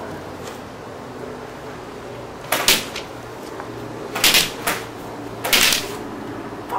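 Three short, sharp noises, each lasting a fraction of a second, about a second and a half apart, over a steady low hum.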